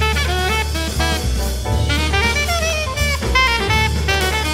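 Jazz music: a saxophone plays a quick melody over drums and a bass line.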